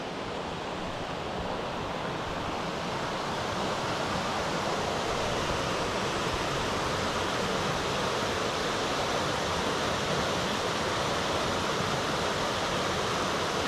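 Rocky mountain stream rushing and splashing over small cascades, a steady rush of water that grows a little louder over the first few seconds.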